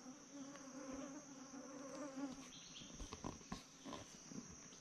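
Faint forest insects shrilling steadily at a high pitch. A low buzzing hum runs underneath and stops about halfway through, and a few soft ticks come near the end.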